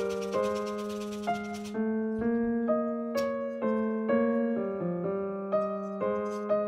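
Background piano music: a light melody of single notes, about two a second. A rapid scratchy rasping runs under it for the first second and a half.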